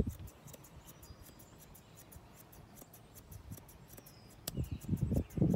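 Long straight grooming shears snipping through a Curly-Coated Retriever's curly coat, a quick, steady run of light snips. Near the end, louder low rustling and bumps come in.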